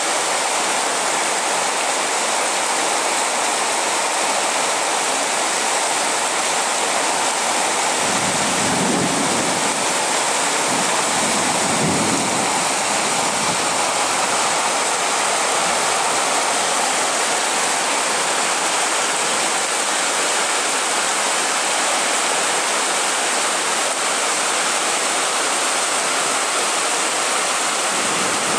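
Steady hiss of a heavy downpour. A low rumble of thunder rises about eight seconds in and dies away by about thirteen seconds.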